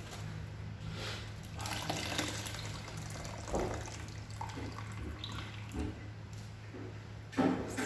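Wet grated coconut squeezed and kneaded by hand in a steel bowl of water, liquid squelching and dripping back into the bowl as the coconut milk is pressed out. Irregular surges, the loudest near the end, over a steady low hum.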